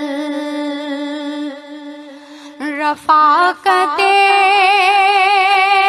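A woman's solo voice singing a naat, an Urdu devotional song. She holds a long note with vibrato, which fades away; about three seconds in she sings a few short quick syllables, then from about four seconds in holds a new, louder note with vibrato.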